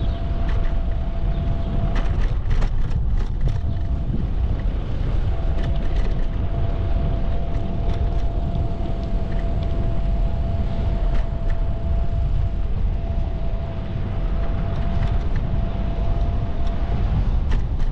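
Wind buffeting the microphone of a camera on a moving bicycle, over the rumble of riding on pavement, with a faint steady whine through most of it and scattered light clicks and rattles.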